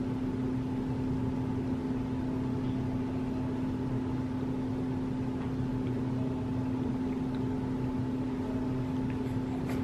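Steady machine hum with one strong, unchanging low tone, like a household appliance running.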